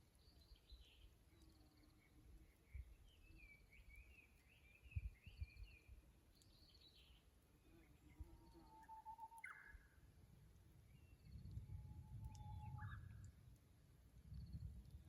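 Japanese bush warbler (uguisu) singing faintly twice: each song is a long held whistle that breaks into a quick rising flourish, the "hoo-hokekyo" song. Other small birds chirp higher up in the first half, over a low rumble of wind.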